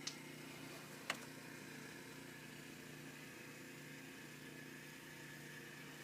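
A steady low mechanical hum, with two short clicks near the start about a second apart.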